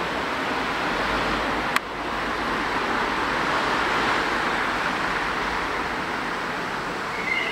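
Steady, dense buzz of a swarm of bees flying close around the microphone, with a single sharp click about two seconds in.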